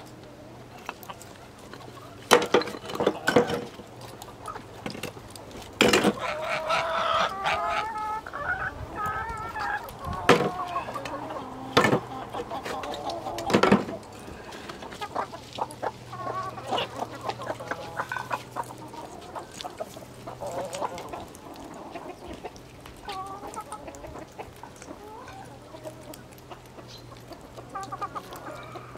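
Chickens clucking, with about half a dozen sharp clatters of broken bricks being tossed into a steel wheelbarrow during the first half.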